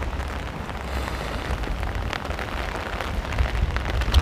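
Steady rain falling, an even hiss dotted with many small drop ticks, over a low rumble underneath.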